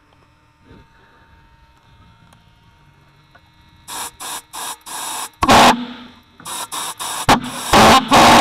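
Starting attempt on a small model pulsejet: a compressed-air blow gun fires short blasts into the intake with the ignition spark on, beginning about four seconds in. The engine fires in brief, loud bursts but does not keep running.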